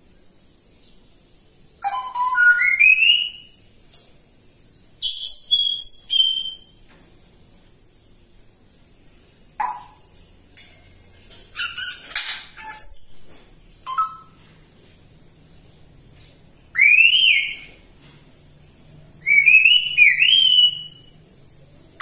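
African grey parrot whistling in short bursts every few seconds: rising, gliding whistles, with a rougher, harsher call a little past the middle.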